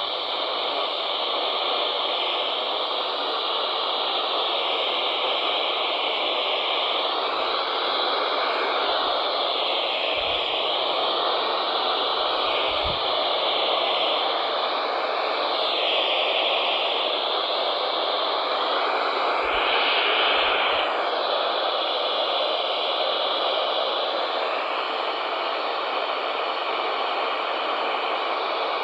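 Steady radio static from a weather-radio receiver, an even hiss whose tone wavers slowly, as on a VHF weather band channel with a weak or absent signal.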